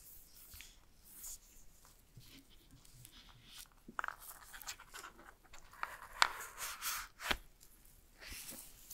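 Gloved hands handling AirPods Max headphones and their soft Smart Case: rustling and scraping, with a few sharp clicks, the loudest a little past six seconds and just after seven.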